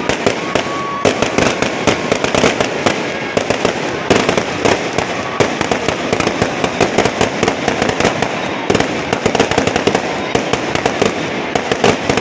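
Fireworks crackling and banging in a rapid, irregular string of sharp pops, many a second, with only brief lulls.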